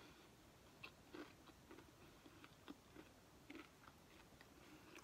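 Faint chewing of a bite of a giant homemade rolled Takis snack: scattered soft crunches and mouth clicks.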